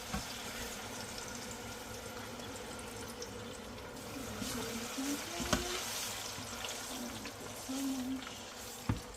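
Hot oil sizzling steadily in a frying pan, with a couple of short knocks of a utensil or pan about halfway through and near the end.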